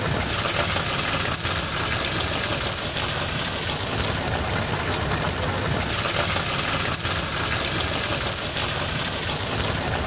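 Swaraj 8100EX combine harvester running steadily while its unloading auger pours threshed wheat into a trolley, the engine drone mixed with an even hiss of falling grain.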